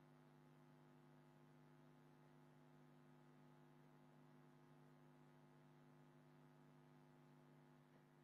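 Near silence: a faint, steady electrical hum of several low tones.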